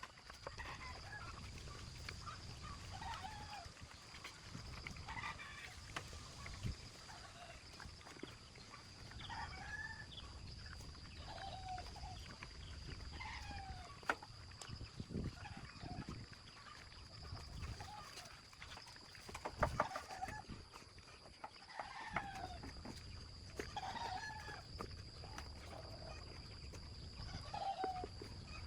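Short animal calls, one every second or two, over a low rumble, with a few sharp knocks and a steady high-pitched whine throughout.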